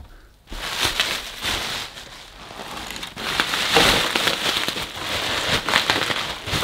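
Bubble wrap crinkling and rustling as it is handled, a dense crackling rustle that starts about half a second in.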